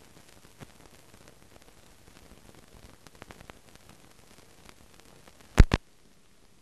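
Faint hiss of an old soundtrack with scattered light crackles and clicks, then two sharp, loud clicks in quick succession near the end, after which the hiss drops lower.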